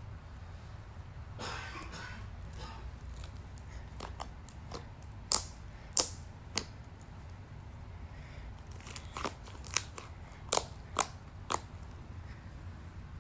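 Slime being handled and squeezed, with a string of sharp pops and clicks, the loudest about halfway through and again near the end.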